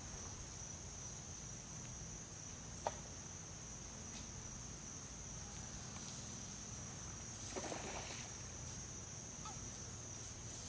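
Steady high-pitched chorus of insects with a faster pulsing chirp above it, from a summer yard. A single sharp click about three seconds in and a short rustle near eight seconds stand out briefly.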